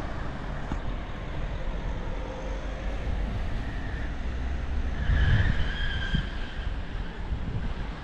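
Road traffic passing on a city street: a steady mixed noise of vehicles, loudest about five seconds in, where a brief high whine also sounds.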